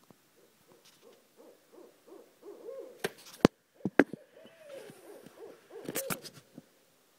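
Barred owl hooting: a fast run of rising-and-falling hoots, about two to three a second. A few sharp clicks break in near the middle and again near the end.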